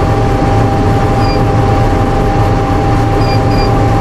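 Combine harvester running with its threshing drum, fan, cutter bar and reel all engaged: a loud, steady drone with a steady high whine over it. A few faint short chirps sound about a second in and twice near the end.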